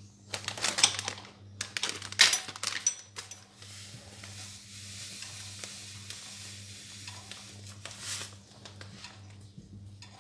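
Instant mashed-potato powder being poured from a foil packet into hot milk in a stainless steel pot and stirred in with a wooden spoon. Loud rustling handling noises come in the first few seconds, then a steady hiss, over a faint low hum.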